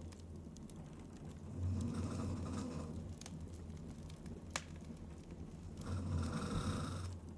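A woman snoring in her sleep: two snores about four seconds apart, each lasting about a second, with a sharp click between them.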